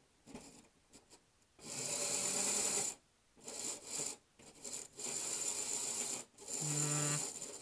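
Fleischmann H0 model locomotive's small electric motor and gears whirring in four stop-start bursts, cutting in and out because the dirty wheels keep losing contact with the rails.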